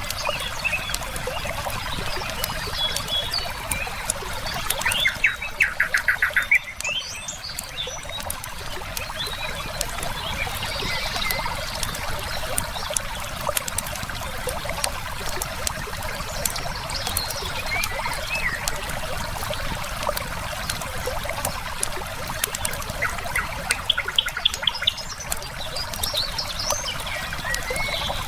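River water flowing steadily, with a fire crackling and birds chirping here and there. Twice, about five seconds in and again near the end, comes a louder rapid trill of evenly spaced notes.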